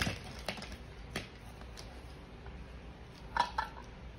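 A few light clicks and taps of toy kitchen pieces being handled, scattered irregularly, the sharpest at the very start and about a second in.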